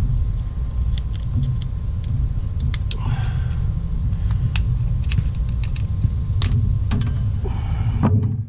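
Small metal parts and hand tools clicking and clinking against each other with a couple of brief squeaks, as a bent retaining clip is worked off a hydrostatic transaxle's dump valve linkage. A steady low rumble runs underneath and cuts off suddenly near the end.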